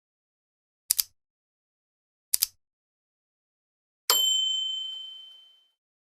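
Two quick double clicks about a second and a half apart, then a single bright bell ding that rings out and fades over about a second and a half, against total silence.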